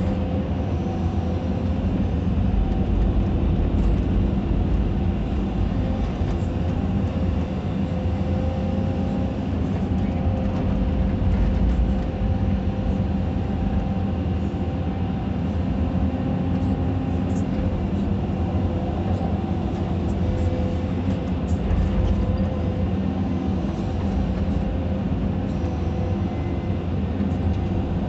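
Caterpillar 320D2 hydraulic excavator heard from inside its cab: the diesel engine runs steadily while the boom and bucket work. A whining tone rises above the engine rumble at times, and the level swells slightly now and then.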